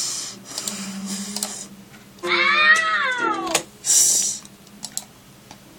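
A single long meow-like cry, about two seconds in, rising and then falling in pitch, with a hiss before it and scattered clicks after it.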